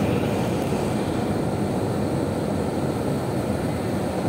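Steady low rumble inside a car's cabin, driving slowly on a rain-soaked road: engine and tyres on wet asphalt.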